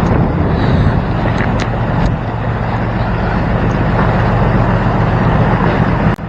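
Boat engine running at a steady drone, with wind on the microphone; the sound drops out abruptly for a moment near the end.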